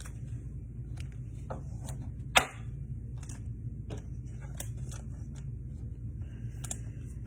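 Trading cards and hanger-box packaging being handled on a table: light clicks and rustles, with one sharp snap or tear about two and a half seconds in, over a steady low hum.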